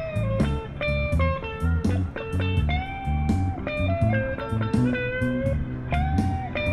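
Background instrumental music with a steady beat: a lead melody line with sliding notes over a pulsing bass.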